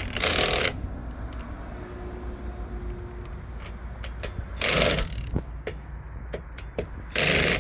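Impact wrench hammering on a wheel's lug nuts in three short bursts: one at the start, one near five seconds and one at the end. It is going over each nut again to check that it is tight.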